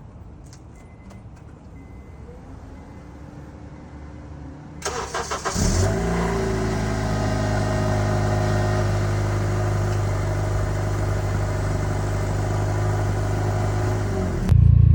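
Quiet background for the first few seconds; then a car engine is cranked, catches with a brief flare of revs, and settles into a steady idle, cut off suddenly near the end.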